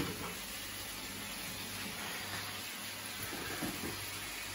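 Halved nectarines sizzling in butter and sugar in a frying pan as the sugar caramelizes: a steady hiss.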